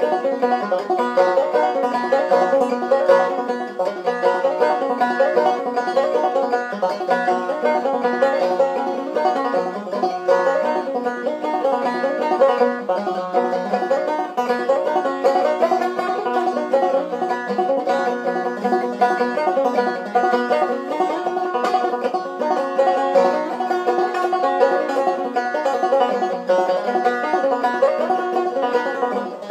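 Banjo played clawhammer style: a solo old-time tune in a steady, unbroken run of quick plucked notes.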